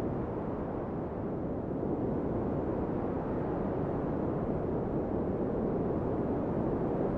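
Steady, low wind noise of a snowstorm ambience, even and unbroken.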